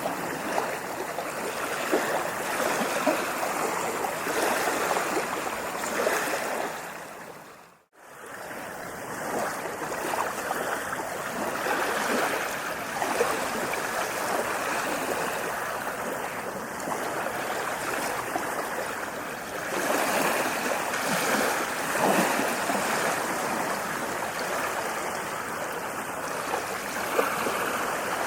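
Ocean waves washing onto a beach: a steady hiss of surf that swells and eases. About eight seconds in it fades out to silence for a moment and fades back in.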